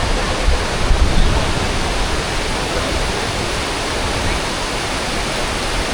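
Steady, loud rush of the Tumpak Sewu waterfall's water crashing down close by.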